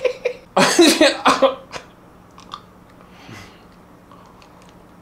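A man's burst of laughter, a few quick breathy pulses about a second long, followed by quiet with a few faint small clicks.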